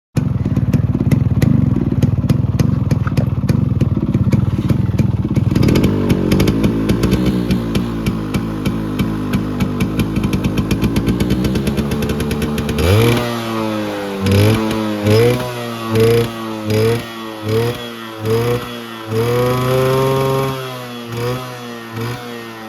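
Yamaha RX100's two-stroke single-cylinder engine running with a rapid firing beat, its note climbing slowly, then revved in quick throttle blips about once a second from about halfway, with one longer rev near the end before it drops back.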